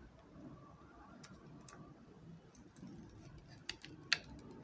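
Faint scattered ticks and crackles of a smartphone being handled and its protective plastic film peeled off the back, the sharpest clicks about four seconds in.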